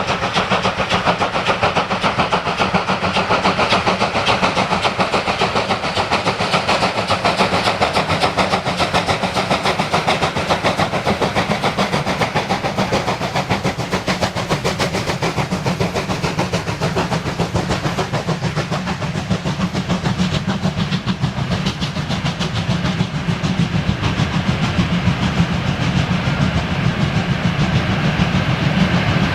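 Class 52 steam locomotive, a two-cylinder 2-10-0, running under steam with a steady, rapid stream of exhaust beats and rail noise.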